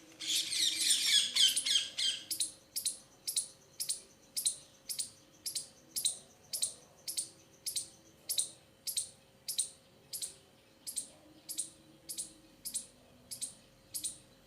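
A small bird calling: short, high chirps repeated evenly about twice a second, with a louder burst of rapid chattering in the first two seconds.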